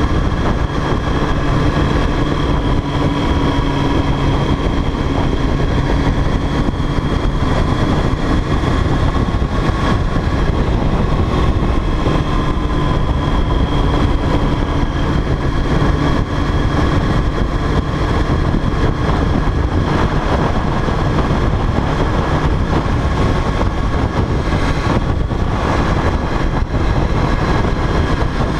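Sport motorcycle engine running steadily at road speed, heard on board, its pitch drifting slightly up and down through the curves, with heavy wind rush on the bike-mounted camera's microphone.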